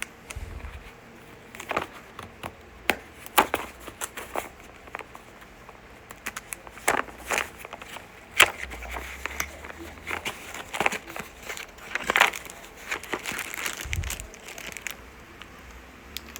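Packaging crinkling and small plastic adapters clicking as they are handled and unpacked, in irregular sharp crackles and clicks.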